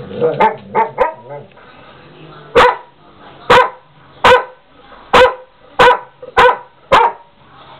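A large dog barking: a few short, softer vocal sounds in the first second, then seven loud barks in a steady rhythm, about one every 0.7 seconds.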